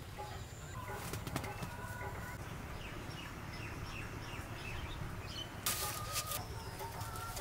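Outdoor ambience of birds chirping and calling in short repeated notes over a steady low rumble, with a brief burst of hiss about six seconds in.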